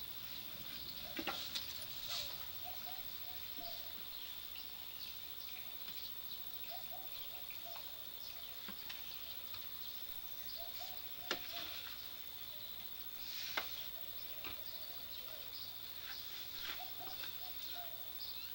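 Steady high-pitched insect chirring, with scattered light clicks and taps; the sharpest tap comes about eleven seconds in.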